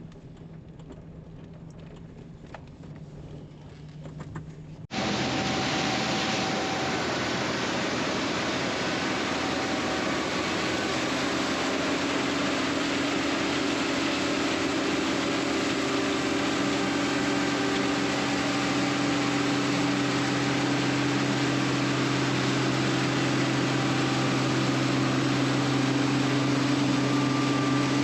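Large farm machinery running steadily: an even, loud rush of noise with a low engine hum. It starts abruptly about five seconds in, after a faint low hum.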